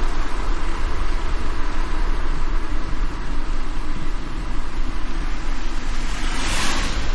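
Car driving in the rain: a steady low road rumble under an even hiss of rain and wet tyres, with a brief louder swish near the end.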